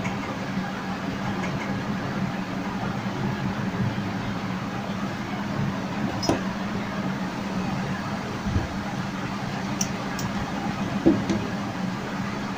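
Steady low hum of background machinery or fan noise, with a few light clicks and a low thump, the sharpest click about 11 seconds in.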